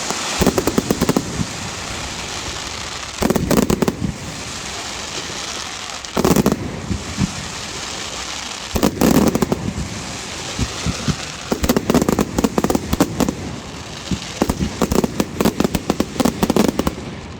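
Fireworks display: about six clusters of rapid cracks and bangs a few seconds apart, with a steady crackling hiss between them.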